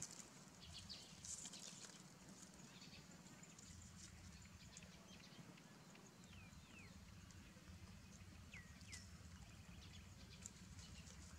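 Near silence: faint outdoor ambience with a steady low hum and scattered faint ticks, broken by a few brief, high, falling squeaks about halfway through and again a little later.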